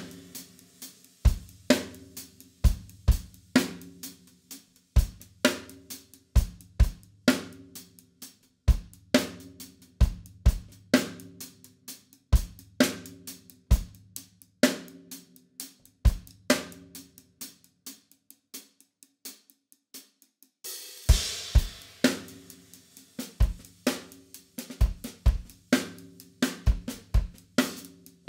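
Acoustic drum kit played in a steady groove, bass drum thumps under snare and hi-hat strokes, with a cymbal crash ringing out about three quarters of the way through. The bass drum is one the drummer says sounds weird.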